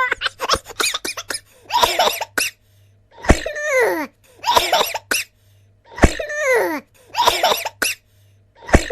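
Cartoon comedy sound effect: a quick run of sharp clicks, then a cartoon voice making short cough-like bursts over and over, several opening with a sharp hit and each sliding down in pitch.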